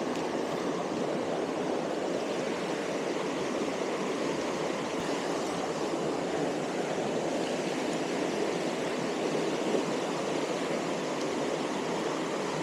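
Stream water rushing steadily over rocks, an even hiss with no change.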